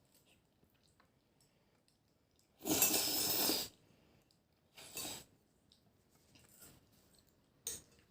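Handling noises at a table laid for a meal: a noisy rustle lasting about a second, about three seconds in, a shorter one near five seconds, a sharp click near the end, and faint light clicks between.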